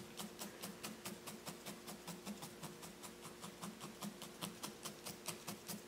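A felting needle in a pink pen-style holder stabbing repeatedly into a wool cat ear, a soft even run of about five pokes a second. A faint steady hum lies underneath.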